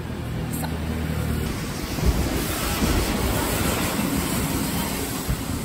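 City street traffic with wind buffeting the microphone in gusts. A low steady vehicle hum fades out after about a second and a half.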